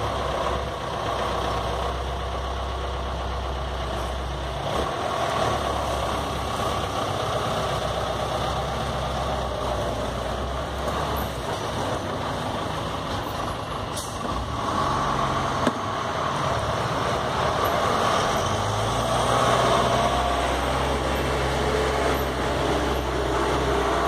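A city bus's diesel engine idling with a steady low rumble. The rumble fades out about halfway through and comes back in the last few seconds, and there is one short knock between.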